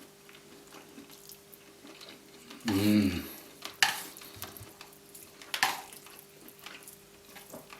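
Close-miked eating sounds of crispy fried noodles: soft crackling chews and small utensil clicks, with a short hum about three seconds in.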